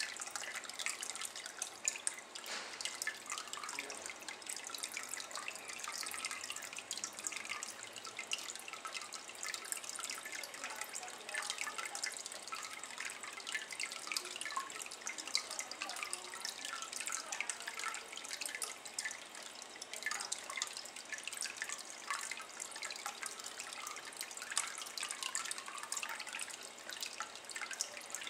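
A thin stream of water trickling into a shallow ceramic basin of water: a steady patter of small splashes and drips.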